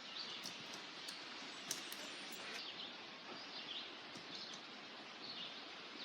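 Faint outdoor ambience: a steady background hiss with small birds chirping now and then, and a few light ticks.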